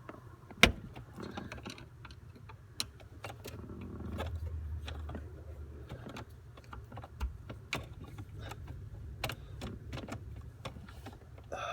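Scattered clicks and taps of hands handling wiring connectors and tools under a car's dashboard, with one sharp click about half a second in. A low rumble runs underneath for a couple of seconds midway.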